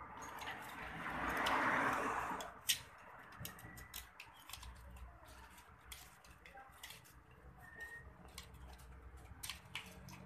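Scattered metallic clicks and clinks of a spanner and bolt being worked at a motorcycle's rear muffler and footpeg bracket, with one sharp clink about three seconds in. A brief swell of rushing noise fills the first two seconds.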